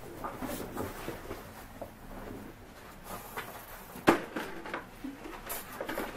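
Rustling and handling of a jacket being pulled on and a welding helmet being adjusted, with scattered small clicks and one sharp knock about four seconds in.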